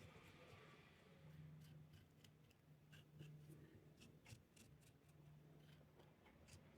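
Faint, scattered snips of scissors cutting felt, over a low steady hum.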